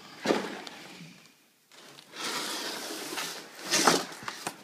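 Cardboard box and packaging being handled as a snowboard is unboxed: scraping and rubbing, with a sharp knock about four seconds in.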